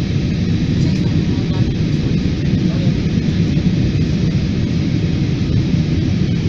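Steady cabin noise of a jet airliner in flight: engine and rushing-air noise heard from inside the passenger cabin.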